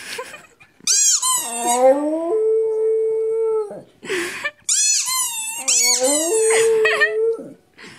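A dog howling, twice: each time a run of high, squeaky rising-and-falling notes settles into one long, steady howl.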